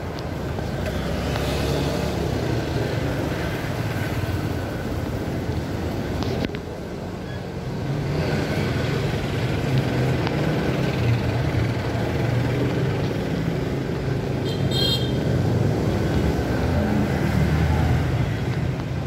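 Street traffic of cars and motorcycles running past, a continuous engine rumble with road noise, with a brief high-pitched chirp about fifteen seconds in.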